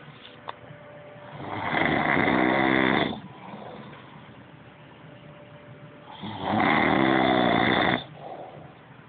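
A man snoring loudly on a couch: two long snores, each about a second and a half, some four and a half seconds apart.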